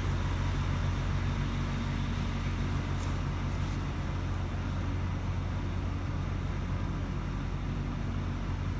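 A vehicle engine idling with a steady low drone that does not change.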